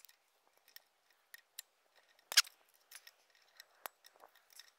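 Small metal clicks and scrapes of a multitool and a pointed tool working at a steel pivot pin and its retainer on a backhoe arm, with one sharper click about two and a half seconds in.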